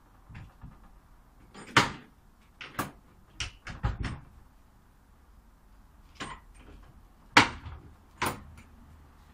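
Sharp knocks and clacks from a wooden gate being handled against its post, about nine in all, in two groups: a cluster around two to four seconds in and another around six to eight seconds in, the loudest single knocks about two seconds in and just past seven seconds.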